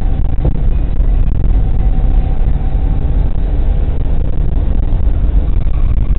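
Steady low rumble of engine and road noise inside a moving vehicle's cabin, picked up by a dashcam, with a faint steady whine above it.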